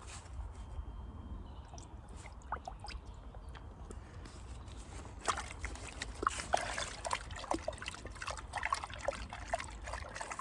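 Water dribbling and splashing in a bucket as molasses is added to it. It is sparse at first and turns into a busy run of small drips and splashes about halfway through.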